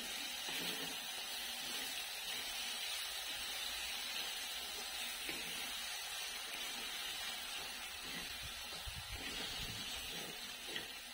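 Puréed spinach frying in hot oil in a kadai as it is stirred with a wooden spatula: a steady, gentle sizzle that eases a little near the end.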